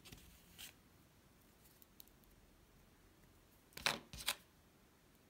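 A modelling tool scratching into soft air-dry clay to score it for joining, then two short sharp handling sounds about four seconds in.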